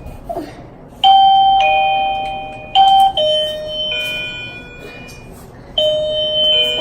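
Fosmon WaveLink wireless door-open chime ringing, set off by opening its sensor: a falling two-note electronic ding-dong about a second in, followed by further chime notes at other pitches, near the middle and again near the end.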